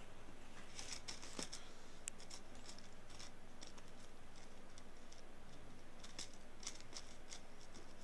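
Ear pick scraping earwax inside the ear canal: faint, scattered crackles and scratches that come in small clusters.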